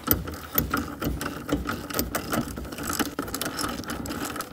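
Hand ratchet clicking rapidly and unevenly as it spins out the already broken-loose lower bolt of a rear shock absorber.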